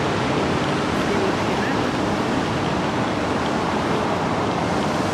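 Steady rushing splash of water from a public fountain, an even noise that holds without a break, with faint voices of people in the square.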